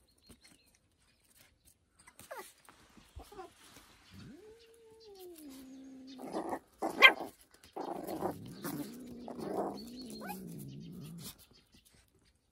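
Small fluffy puppy barking sharply a few times, the loudest bark about seven seconds in, between long, low growling cries that rise and fall in pitch.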